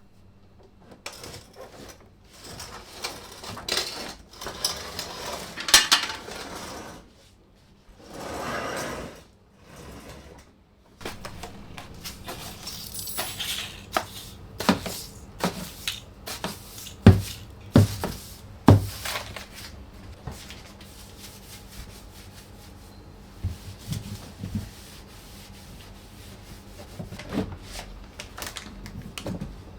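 Dishes and cutlery being handled: scattered clinks and sharp knocks, with a few short scraping or rustling stretches. The loudest knocks come in a cluster a little past the middle.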